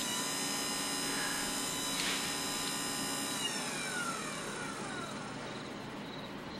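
1 hp DC mini bike motor running on a small battery with its leads swapped for reverse, a steady whine. About three and a half seconds in the whine starts falling in pitch as the motor slows.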